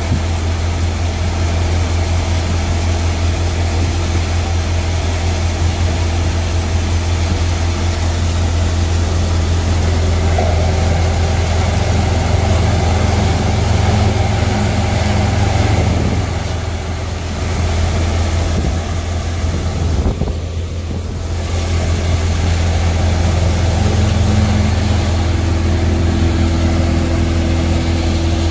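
Tractor-driven NVT tokri-model multicrop thresher running steadily while threshing chickpea plants, a loud steady low machine hum from the tractor engine and threshing drum. The sound eases briefly twice past the middle before picking back up.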